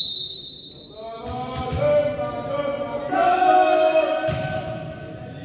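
A referee's whistle blast trailing off at the start, then a group of voices chanting in unison, with long held notes that swell about three seconds in, echoing in a gym.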